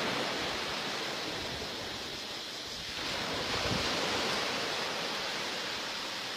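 Sea waves washing on the shore with wind on the microphone, the surf swelling again about three seconds in.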